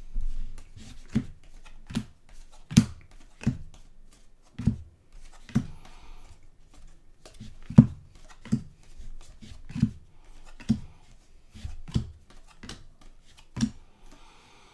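Trading cards being handled and flipped through by hand, with a sharp tap about once a second over faint rustling.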